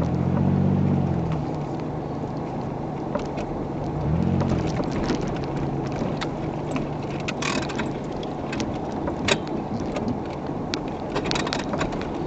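1994 Oldsmobile Cutlass driving a rough dirt trail, heard from inside the car: the engine note rises and falls at the start and again about four seconds in, over steady road noise. Scattered knocks and clatters from the car body as it goes over bumps, the sharpest a little past the middle.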